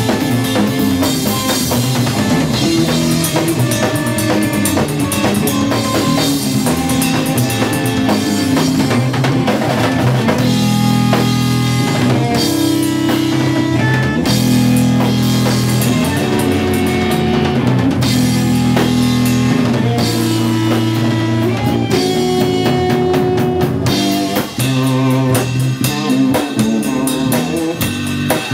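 Live instrumental jazz-metal fusion band playing: a drum kit with bass drum and rimshots under electric guitar, over strong held low notes.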